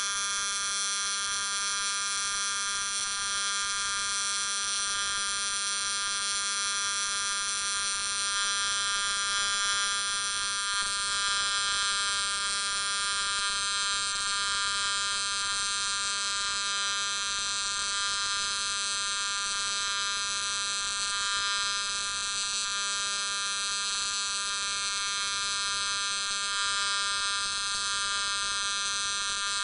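AC TIG welding arc on aluminum buzzing steadily, a constant high-pitched electric buzz.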